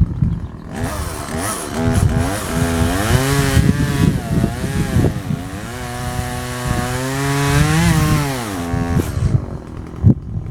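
Two-stroke chainsaw cutting into a juniper trunk. Its engine pitch rises and sags again and again as the chain bites, holds steady for a couple of seconds, then drops away near the end.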